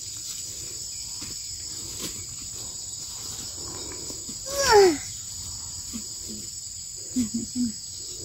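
A steady, high-pitched drone of insects singing. About four and a half seconds in comes a short, louder cry sliding down in pitch, and near the end three short low sounds.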